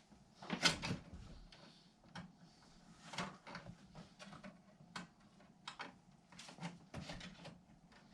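A series of sharp knocks and clicks, irregular and spread throughout, the loudest cluster about half a second in, as of objects being handled and set down.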